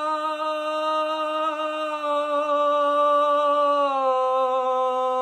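A man singing unaccompanied, holding one long sustained note that steps down slightly in pitch about four seconds in: the closing note of the song.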